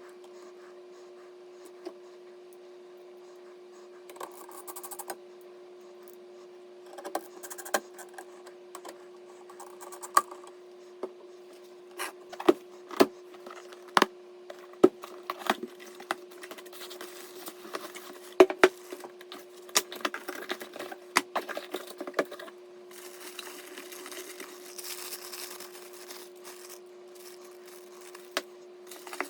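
PC parts handled by hand during a build: irregular clicks, taps and small rattles of hard parts, with rustling, over a steady low hum. The clicks come thickest in the middle, then give way to a longer stretch of rustling.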